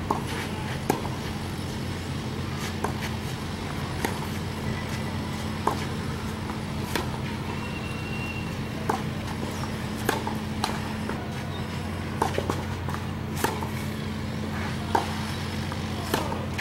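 Tennis balls struck by rackets and bouncing on a clay court in a baseline rally: sharp pops about every second or so, over a steady low hum.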